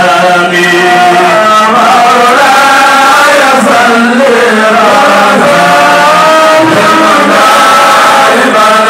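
Male voices chanting a continuous, melodic devotional chant, with long held notes that glide from one pitch to the next.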